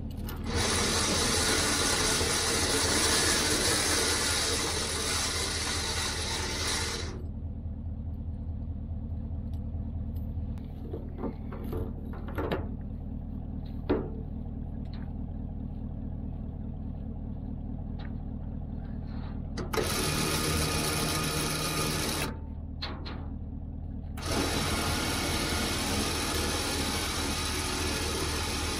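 Electric trailer winch running in pulls as it drags a non-running truck up onto a car trailer: about seven seconds of pulling, a long stop with a few clicks, then a short pull and a longer one near the end. A steady low engine hum runs underneath.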